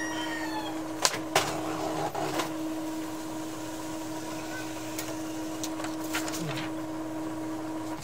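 Epson L3110 inkjet printer with a steady hum while a sheet of paper is handled and loaded into its rear feed tray, giving a few sharp clicks and rustles between one and two and a half seconds in; the hum cuts off suddenly at the end.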